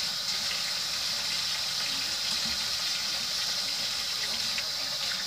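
Steady, even hiss with no change in level, with a couple of faint light ticks.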